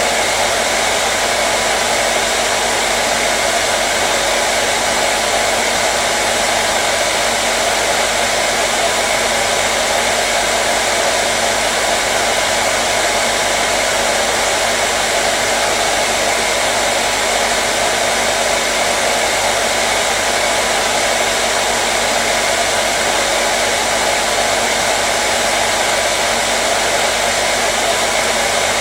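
Hair dryer running continuously with a steady, even rushing sound and a faint motor hum, unchanging throughout, used as soothing white noise for babies.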